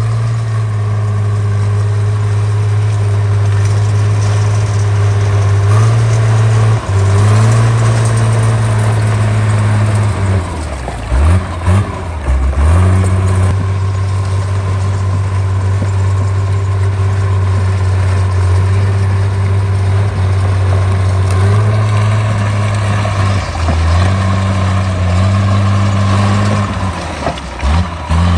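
Caterpillar D3C bulldozer's diesel engine running under load, a steady low drone whose pitch steps up and down several times as the load changes, with a few brief drops in level about halfway through.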